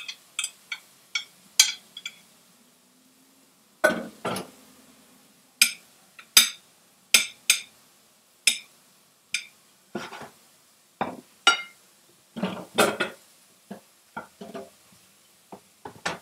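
A spoon clinking and scraping against a glass bowl and a plate as food is served, in an irregular series of sharp clinks with a few heavier knocks about four seconds in and again near the end.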